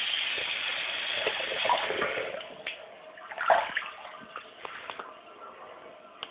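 Water running from a tap into a sink basin and splashing, dying away about two and a half seconds in. After it, a few scattered clicks and knocks, the loudest about three and a half seconds in.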